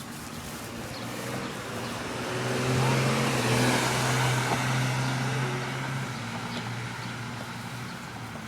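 A car driving past on the street, its tyre and engine noise growing louder to a peak a few seconds in and then fading away, with no horn.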